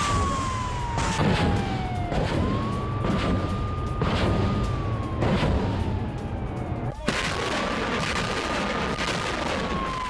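A warning siren wailing in slow cycles: it rises quickly, holds a high tone for a couple of seconds, then slides slowly down before rising again. Under it run a low rumble and several heavy thuds.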